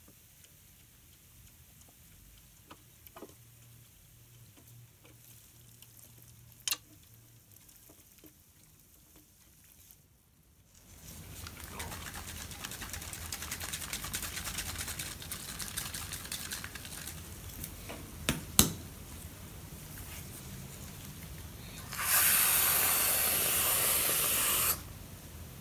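Light clicks of silicone tongs lifting and setting pancake strips, then a steady rustling noise from about halfway, with a sharp click. Near the end an aerosol whipped cream can sprays into the bowl: a loud, even hiss lasting about two and a half seconds that cuts off sharply.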